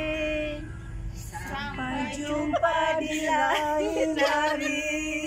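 Several women singing a slow farewell song together, their voices overlapping and holding long notes.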